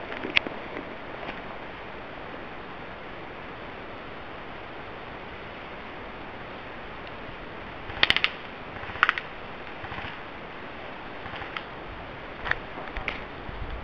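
Airsoft guns firing short, clicky shots. The loudest is a quick string of shots about eight seconds in, with another burst about a second later and scattered single shots near the end. Under them runs a steady background hiss.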